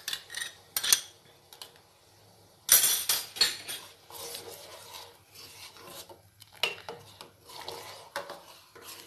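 Metal ladle stirring milk in a stainless steel pan, clinking and scraping against the pan's sides and bottom. The loudest knocks come in a quick cluster about three seconds in.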